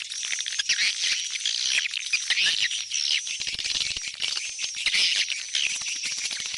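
A dense chorus of swiftlets, many rapid chirps and clicking twitters overlapping, over a steady high tone: a swiftlet call track of the kind played to draw swiftlets back into a nesting house.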